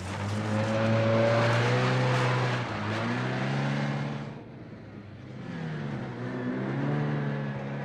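Lamborghini Miura's V12 engine accelerating hard, its pitch climbing, dropping at a gear change, then climbing again after a brief lull about halfway through.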